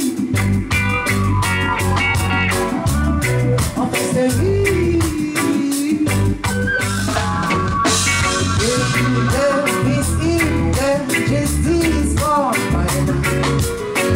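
Live reggae band playing: a woman singing lead over bass, drum kit and guitar, with a steady beat throughout.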